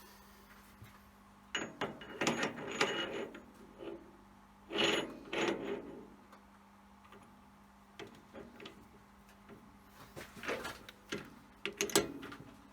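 Irregular clinks, clicks and rattles of metal tools and parts being handled at a metal lathe, in uneven bursts, with a faint steady hum underneath.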